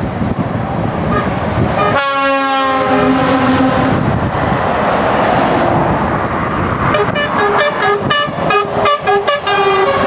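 Lorry horns sounding as trucks drive past below: one long blast starting about two seconds in, then a quick series of short toots near the end. Steady traffic rumble and wind noise run underneath.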